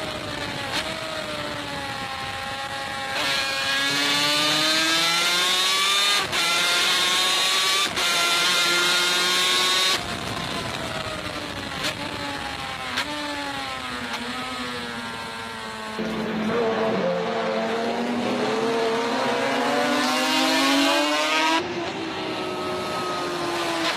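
Two-stroke racing motorcycle engine at high revs on a track, its pitch climbing through each gear and dropping back at the shifts, with a few sudden jumps in loudness.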